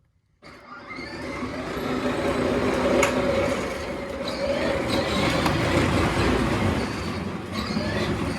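A steady mechanical whirring and rumbling noise starts suddenly about half a second in and runs on, with a wavering mid-pitched tone inside it.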